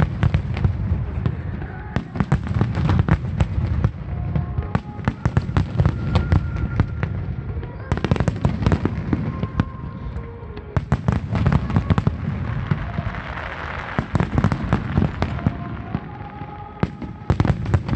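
Large aerial fireworks barrage: dense crackling and sharp bangs over a continuous low rumble of booming shells, with short lulls in the barrage, and music playing underneath.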